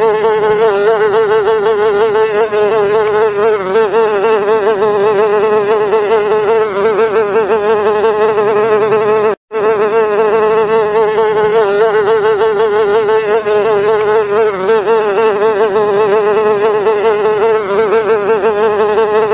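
Loud housefly buzzing laid over the performance as a sound effect: a steady drone that wavers quickly in pitch, cutting out briefly about halfway through.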